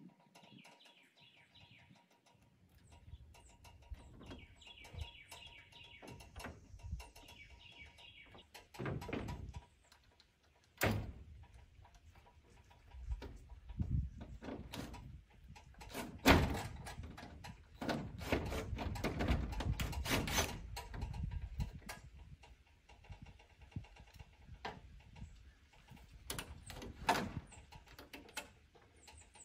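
Scattered knocks and rattles of work on corrugated metal barn siding as old saws are fastened to it, with the loudest knock about 16 seconds in and a denser clatter a few seconds later. Birds chirp during the first several seconds.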